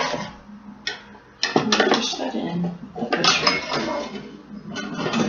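Small metal baking pan clattering and scraping as it is handled into a toy Easy-Bake oven, in several irregular knocks.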